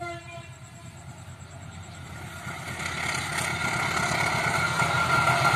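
KAI BB 203 class diesel-electric locomotive approaching. The last of its horn cuts off at the very start, then its engine rumble grows steadily louder from about two seconds in.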